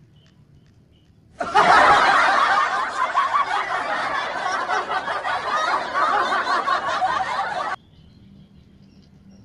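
Laughter, snickering and chuckling, for about six seconds. It cuts in abruptly a little over a second in and cuts off just as suddenly near the end.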